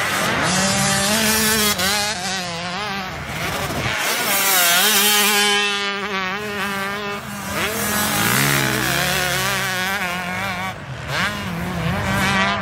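Motocross dirt bike engines revving as the bikes ride the track, several at once. Their pitch rises and falls as the riders work the throttle, loudest in the middle.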